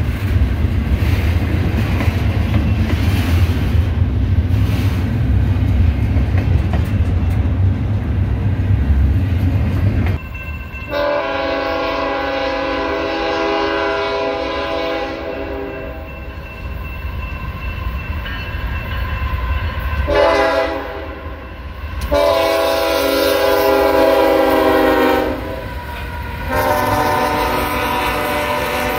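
A double-stack container freight train rolling past with a heavy low rumble and wheel clatter; about ten seconds in it gives way to a Union Pacific freight locomotive's multi-note air horn sounding several long blasts as the train approaches and passes a road crossing.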